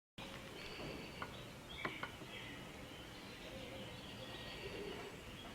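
Quiet outdoor ambience with faint bird chirps and a few small clicks about two seconds in.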